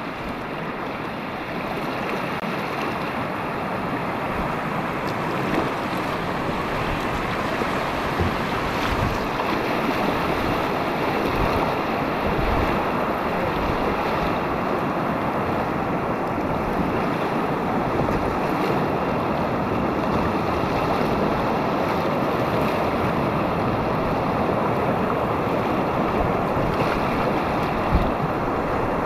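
Steady rushing of whitewater on a river rapid, growing slightly louder over the first dozen seconds and then holding even.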